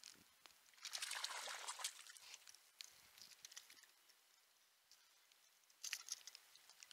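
Faint splashing of a hooked bass thrashing at the water's surface, a burst lasting about a second from about a second in and a shorter one near the end as the fish is swung out of the water, with scattered light ticks of rain.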